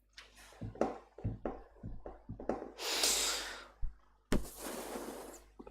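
Computer mouse clicks and small desk knocks, with a long breath out close to the microphone about three seconds in and another breathy hiss near the end.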